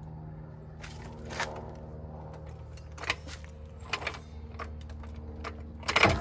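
Metallic clicks and knocks as a steel rock slider is jacked up on a floor jack and shifted into place against a Jeep's body, a handful of separate clanks with the loudest one near the end.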